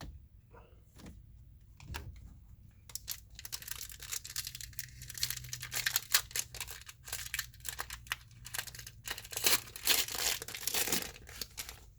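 A Disney Lorcana booster pack's wrapper being torn open and crinkled by hand, a dense run of crackling that builds up a few seconds in and goes on until just before the end.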